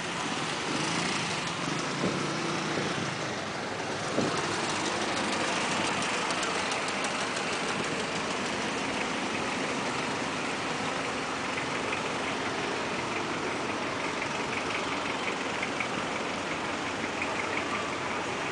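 Congested city street traffic: car and taxi engines idling and creeping past at close range, with a short sharp knock about four seconds in.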